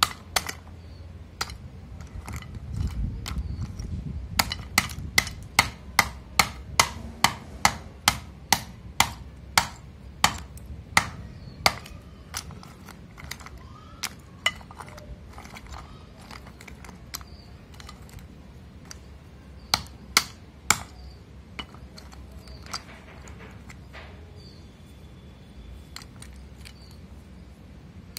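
Hard pieces of roasted multani mitti (fuller's earth) clicking sharply as they are knocked together and handled, in a regular run of about two clicks a second for several seconds, then scattered clicks with a few more around twenty seconds in. A low rumble of the pieces being shifted about three seconds in.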